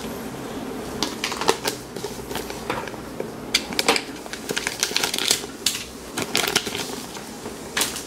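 Plastic packaging bag crinkling and rustling as it is handled and slit open with a utility knife to free an aluminium plate, with many irregular sharp clicks and crackles.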